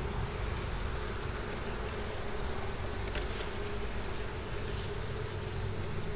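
Honeybees of an opened, queenright hive humming steadily.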